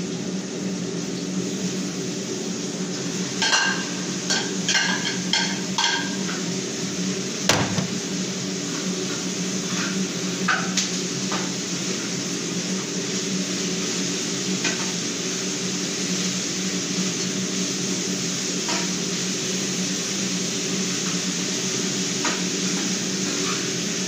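Metal pots and utensils clinking and knocking: a quick run of ringing clinks a few seconds in, one sharper knock shortly after, then occasional lighter clinks, all over a steady mechanical hum.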